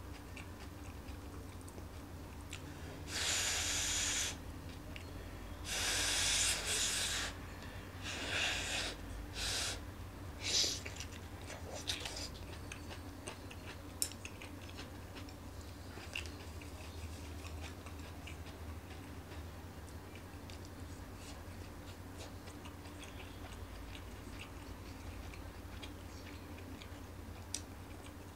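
A man eating stir-fried vegetables with chopsticks. In the first twelve seconds come several loud hissing mouth noises, the first two each about a second long and the rest shorter. After that there are only quiet eating sounds and occasional light clicks.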